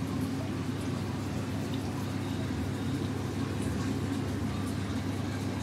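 Aquarium filtration running: a steady low hum with faint water bubbling and small ticks.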